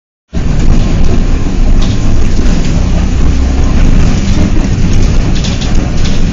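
Loud road noise and low rumble heard from inside a moving car, starting suddenly just after the beginning and running on steadily.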